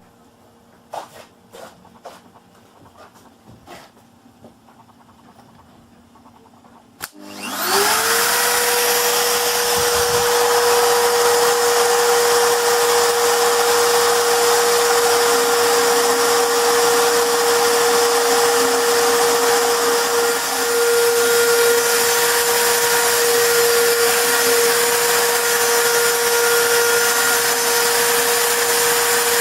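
A few faint clicks, then about seven seconds in a CNC router spindle motor starts, spinning up within a second to a steady high whine with a loud hiss.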